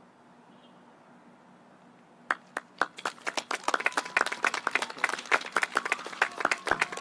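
A handful of people clapping by hand: quiet for about two seconds, then a few separate claps that quickly thicken into steady, close applause.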